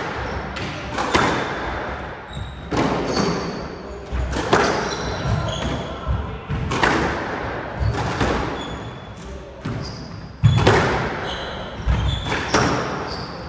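Squash rally: the ball cracks off rackets and the walls about every second or two, each hit echoing in the enclosed court. Short high squeaks from shoes on the hardwood floor come between the shots.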